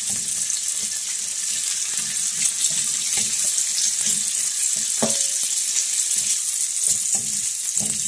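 Chopped bacon sizzling and crackling in butter in a frying pan as it browns, with a few soft knocks from the pan.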